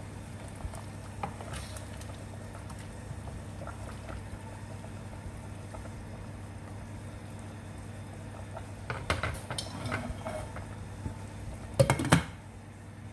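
Chicken adobo sauce simmering in a pan with faint light bubbling over a low steady hum. About nine seconds in there is a short run of utensil knocks and clatter against the pan, and near the end two or three loud clanks on the pot.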